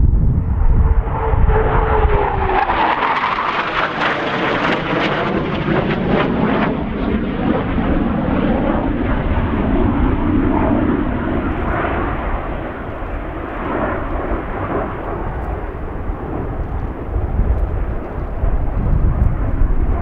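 Eurofighter Typhoon jet's twin turbofan engines roaring as it flies past. A falling whine comes over the first few seconds, the noise is loudest a few seconds in, and then it eases off a little as the jet moves away.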